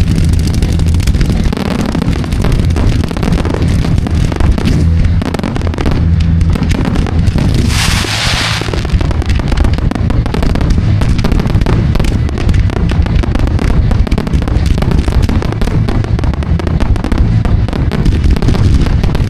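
Fireworks display: a dense, continuous barrage of bangs and crackles over a heavy low rumble, with a loud hissing burst about eight seconds in.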